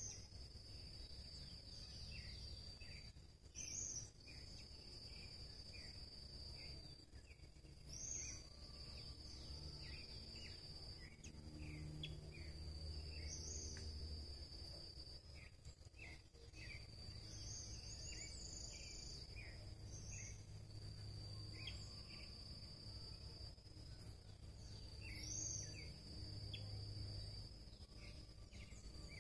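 Faint natural ambience: a steady, high insect buzz that breaks off briefly now and then, with short high bird chirps every few seconds.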